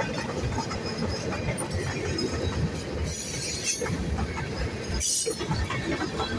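Freight cars of a Norfolk Southern train rolling past close by: a steady rumble and clatter of steel wheels on the rails. Short high-pitched wheel squeals come about three and five seconds in.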